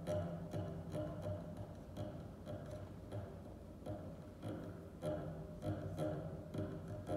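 A consort of four bass viols da gamba playing short, repeated low notes, broken by frequent sharp clicks of bow or fingers on the strings.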